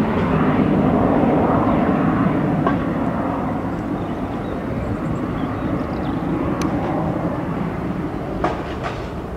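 Boeing 737-800's two CFM56-7B turbofan engines at takeoff thrust: a steady jet rumble that slowly fades as the aircraft climbs away. A couple of small clicks sound near the end.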